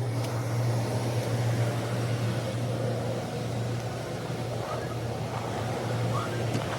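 Steady low mechanical drone with an even hiss over it, like a vehicle running.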